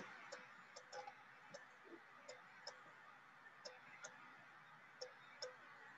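Faint, irregular ticks of a stylus tapping on a tablet screen while words are handwritten, about ten in all.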